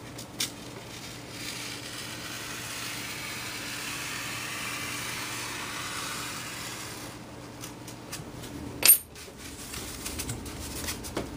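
A knife blade drawn through foam board in one long cut of about six seconds, a dry scratchy slicing sound. A few clicks follow, then a single sharp clack about nine seconds in.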